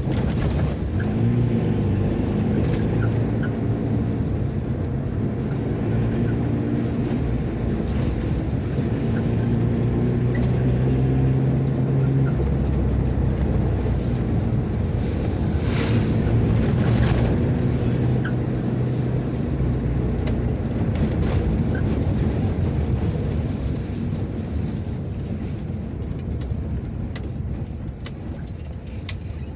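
Old Mazda MR sedan being driven: its engine runs steadily under a constant rush of road noise, the engine pitch rising and falling in the first few seconds and again later as the revs change.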